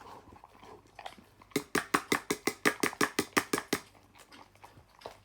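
German Shepherd eating from her bowl: a quick run of wet chomping and smacking, about seven a second, for a couple of seconds around the middle.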